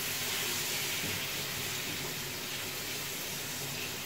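Steady hiss of chicken frying in hot oil in a steel pot.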